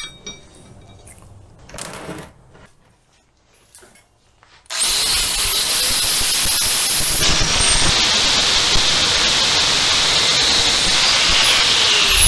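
About five seconds in, a DeWalt angle grinder starts up and its cut-off disc cuts through steel bar stock with a loud, steady, high-pitched grinding.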